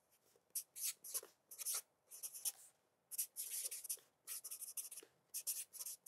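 Felt-tip marker writing on a lined notebook page: a run of short, quick strokes with brief pauses between them as words are written.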